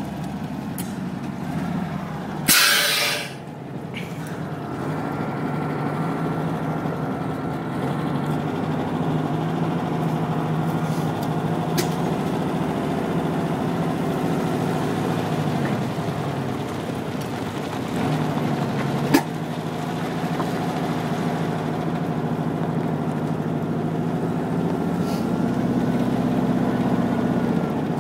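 Air-ride suspension on a bagged 1958 VW Beetle: a loud blast of air hiss about two and a half seconds in, then a steady mechanical hum with a slight rise in pitch near the end. There is one sharp click about two-thirds of the way through.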